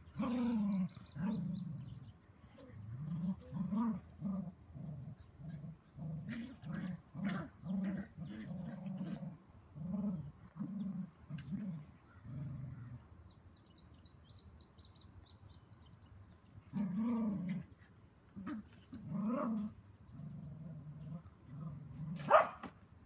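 Cocker spaniel mother and her puppies growling at each other in play, in short bursts repeated over and over, with a few louder growls. One sharp, loud yip comes near the end.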